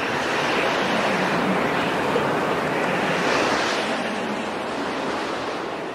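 Rushing, surf-like noise with no pitch to it, a sound-effect intro that holds steady and then eases off a little near the end.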